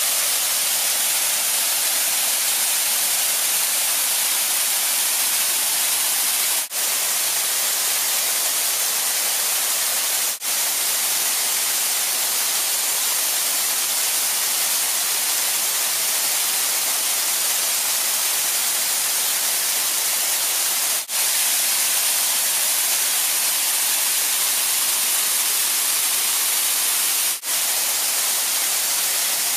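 Steady rushing hiss of a mountain waterfall and torrent, with no rhythm or tone. It breaks off for a split second four times.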